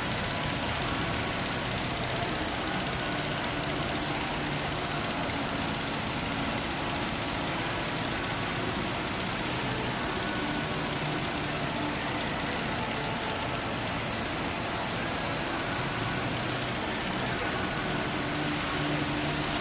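Steady thunderstorm noise, an even rushing hiss of rain and wind that holds at one level throughout with no thunderclap.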